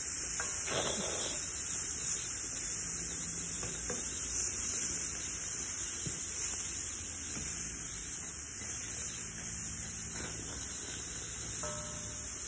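Shrimp sizzling in a perforated grill wok over hot charcoal: a steady hiss, with a few faint taps and scrapes of a wooden spatula.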